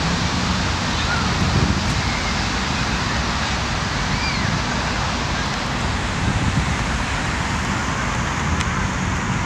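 Steady wind noise over the microphone, with a low rumble of road traffic beneath it.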